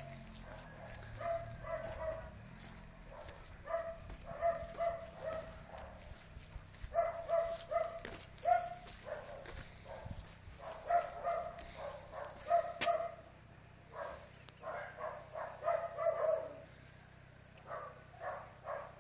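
A dog barking over and over, in quick runs of several high-pitched barks separated by short pauses.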